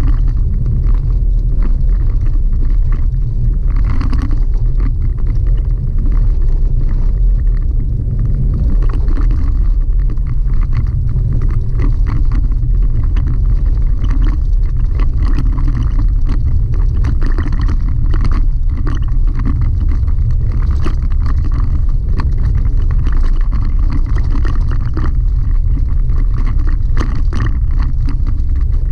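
Chevy Colorado ZR2 pickup driving on a gravel dirt road, heard from inside the cab: a loud, steady low rumble of tyres and drivetrain, with scattered small ticks and rattles from the gravel.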